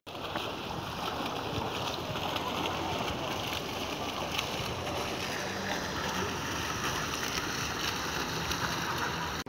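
Small fountain jet splashing into its shallow basin: a steady, even rush of falling water.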